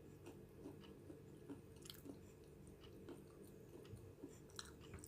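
Faint close-up chewing of fried noodles: scattered soft, wet mouth clicks over a low steady hum.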